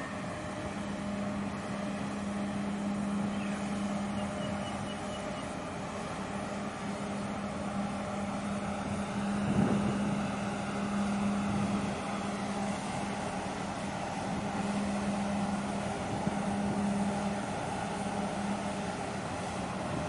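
Steady low drone from a container ship's engines and machinery as it passes close by, over a hiss of wind and water. There is a brief thump about ten seconds in, and the drone weakens near the end.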